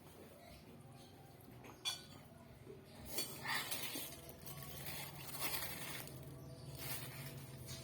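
A single sharp clink of tableware a little under two seconds in, then irregular eating sounds from people eating spicy instant noodles, over a faint steady hum.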